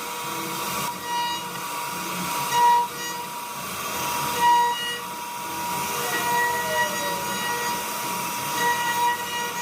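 CNC router spindle whining steadily while carving a mahogany panel, over the hiss of the bit cutting wood. It gets louder briefly twice, about three and four and a half seconds in, and the pitch slides down near the end.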